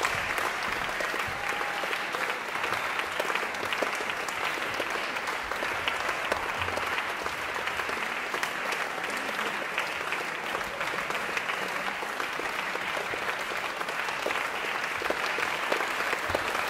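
Audience applauding steadily: dense, continuous clapping with no letup.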